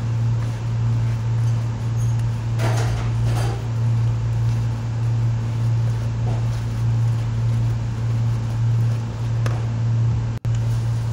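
A steady low hum, like a fan or air conditioner, with a few soft scrapes of a wooden spoon folding thick cake batter in a plastic bowl about three seconds in. The sound drops out for a moment near the end.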